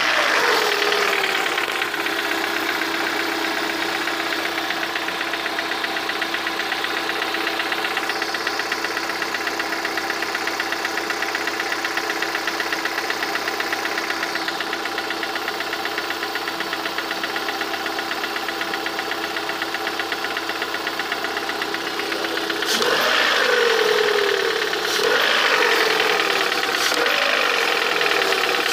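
VAZ-21126 1.6-litre 16-valve four-cylinder engine, warmed up, idling steadily with a knock whose cause the owner does not know. Near the end the throttle is blipped several times, the revs rising and falling.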